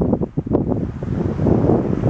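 Wind buffeting a compact camera's microphone in gusts, over the wash of ocean surf breaking on the beach.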